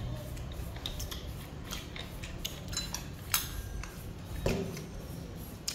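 Chopsticks clicking and tapping against plates and bowls, with scattered light clicks, a sharper click about three seconds in and a duller knock a little over four seconds in.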